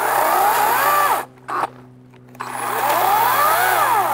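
EGO Power+ CS1804 battery chainsaw cutting into the trunk of a dead, dry tree in two runs of about a second and a half each, with a short blip between them. Its motor whine rises and falls in pitch within each run.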